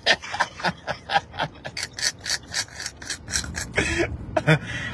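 A man laughing hard: a rapid run of breathy, wheezing laugh bursts, about five a second, with a short voiced sound near the end.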